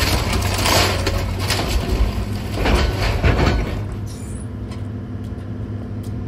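Heavy diesel machinery running steadily while demolition debris crashes and clatters several times in the first few seconds as it is loaded. The banging stops after about four seconds, leaving the engine running.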